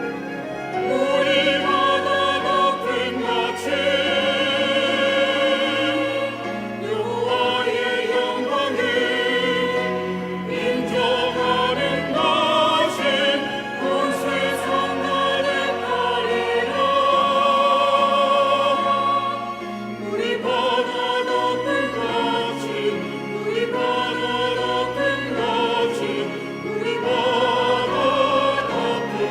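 Church choir singing a sacred anthem in long held phrases, the voices with a wide vibrato.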